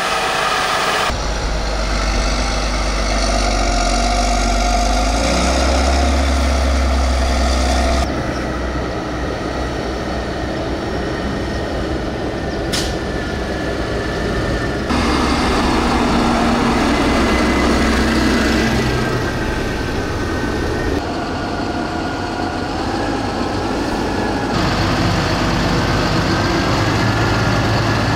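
Large farm tractor diesel engines working and revving under load, the engine note rising and falling, in several takes that change abruptly every few seconds. A single sharp click a little before the middle.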